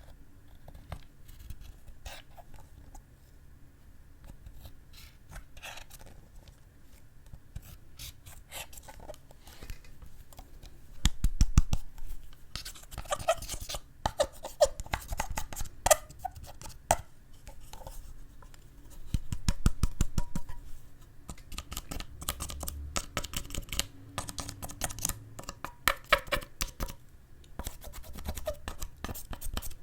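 Slime being squished and pressed by hand, giving off sticky clicks, crackles and small pops in irregular bursts, with a few louder flurries along the way.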